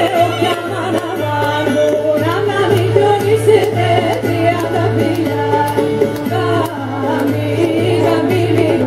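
Live Thracian folk music played by a small band through a PA: a voice singing a wavering melody over violin and lutes, with a steady beat.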